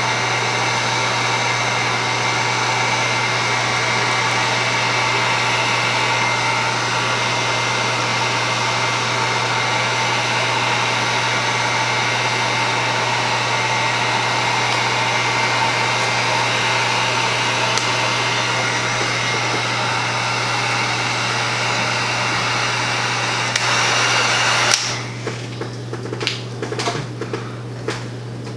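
Electric heat gun running steadily, a fan whir with a constant low hum, blowing hot air over wet epoxy resin. It shuts off suddenly about 25 seconds in, and a few light clicks and taps follow.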